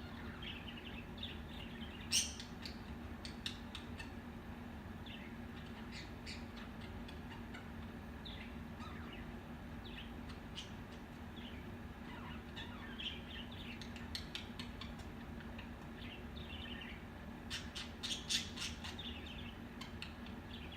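Budgerigars chattering in short chirps, clicks and scratchy squawks, with one sharp loud squawk about two seconds in and a busier, louder flurry near the end.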